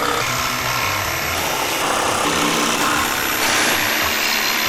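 Electric jigsaw running steadily, its blade cutting through a plywood sheet.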